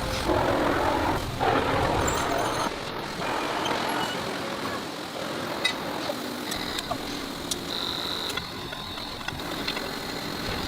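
Heavy factory machinery noise: a steady rumble and hiss, louder in the first couple of seconds, with scattered sharp metallic clicks and knocks.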